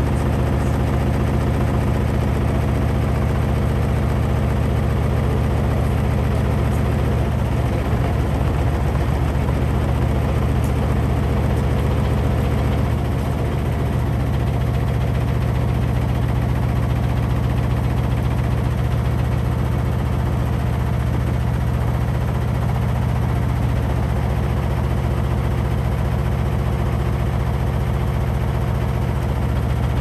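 Samsung front-loading washing machine running steadily with its drum turning a load of wet clothes, a loud, even low hum from the motor and drum. The level dips slightly about halfway through.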